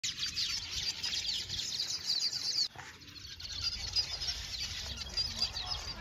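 A colony of weaver birds chattering at their hanging nests: a dense chorus of many overlapping short, high chirps, with a brief dip a little before the middle.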